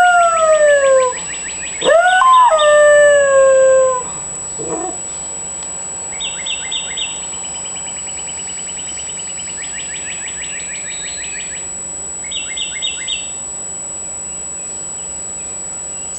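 Dog howling: two long howls in the first four seconds, each rising quickly in pitch and then sliding slowly down. After that, quieter rapid bird trills repeat several times.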